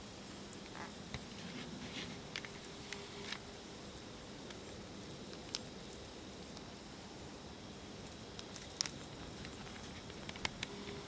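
A night-singing insect, such as a cricket or katydid, calling in short, very high-pitched pulses at about one and a half a second, over a steady high hiss that fades out about halfway through. Scattered light clicks and scratches come in between.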